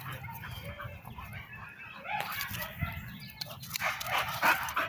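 Dogs barking, with a few short sounds bunched in the second half.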